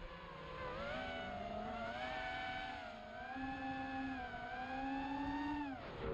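XHOVER MXP200B FPV quadcopter's brushless motors whining, several overlapping tones rising and falling with throttle. Just before the end the pitch dives sharply and then climbs back, as the throttle is chopped and punched again.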